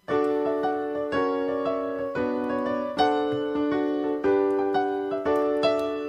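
Background music: piano or electric-piano chords struck about once a second, each ringing out and fading.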